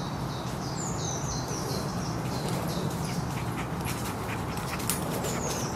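A dog panting steadily close by, with a few short falling bird chirps in the background.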